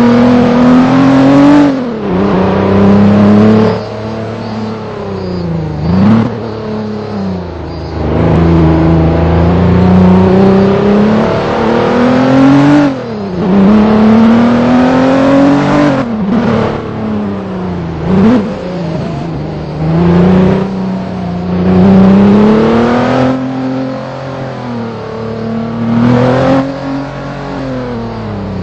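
Vehicle engine running under throttle, its pitch climbing and then dropping sharply again and again, as when revving up and shifting or letting off the gas over and over.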